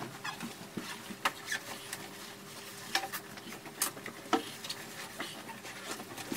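Bedding and pillows being shifted and rustled on a bed, with scattered light clicks and knocks. A faint steady hum runs underneath.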